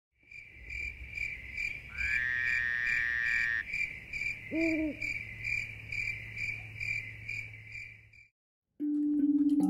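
Night-time animal calls: a high chirp repeating steadily about twice a second over a low hum, with a louder held call lasting about a second and a half from about two seconds in and a single short, low hoot about halfway through. After a moment's silence near the end, bell-like musical tones begin.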